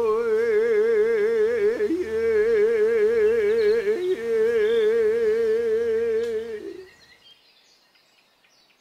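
A man chanting a Hawaiian oli, drawing out long held vowels with a fast, even vibrato, the ʻiʻi of oli chanting. The held tone breaks briefly about two and four seconds in and dies away about seven seconds in.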